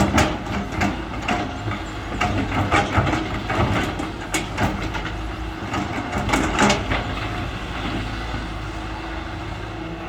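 Hydraulic excavator at work: its diesel engine runs steadily while a series of sharp clanks and knocks sounds through the first seven seconds or so. After that the engine sound is steadier.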